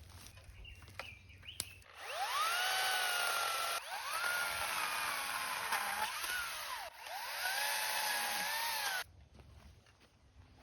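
Small Makita MUC254DZ cordless electric chainsaw run in three back-to-back bursts: each time the motor whines up quickly to speed, its pitch sagging and recovering while it runs. It cuts off suddenly about nine seconds in.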